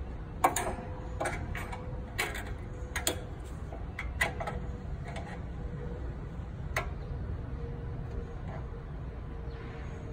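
Scattered light clicks and taps of small metal parts handled by hand as a bullwhip throttle cable is fitted into its bracket and the throttle linkage of a small engine. They come at uneven intervals and thin out after about seven seconds, over a steady low hum.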